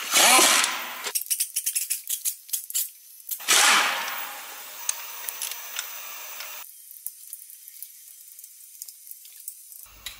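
Pneumatic impact wrench running in two bursts about three seconds apart on the bolts of a Scania DC16 V8's flywheel housing, with light metallic clicking and rattling between them.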